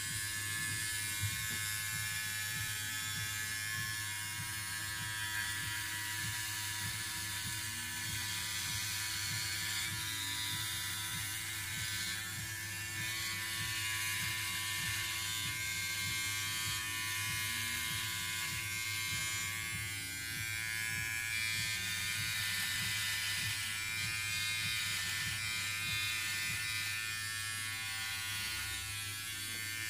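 Philips OneBlade electric shaver running with a steady hum as it is run over stubble on the neck, shaving dry without gel.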